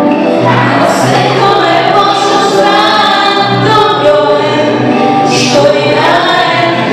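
A woman singing into a handheld microphone over backing music.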